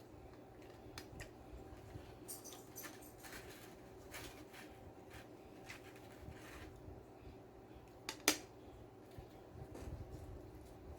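A person eating close to the microphone: crunchy bites and chewing with scattered light clicks, and one sharp click about eight seconds in.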